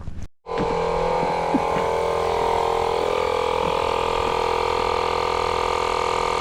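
Small portable air compressor running steadily as it inflates a tire, a constant motor drone with a slight even pulse. It starts suddenly about half a second in, right after a cut.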